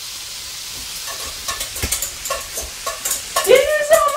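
Food sizzling in a frying pan on an electric stove, with a utensil knocking against the pan several times. About three seconds in, a woman starts singing a few high notes.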